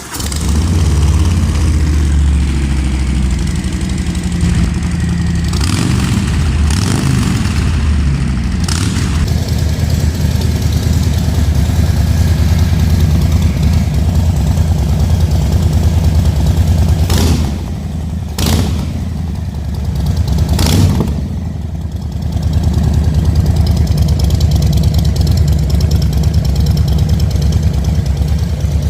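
Harley-Davidson Street Bob 114's Milwaukee-Eight 114 V-twin starting up, then idling through Cobra Raven Black mufflers. The throttle is blipped briefly a few times past the middle.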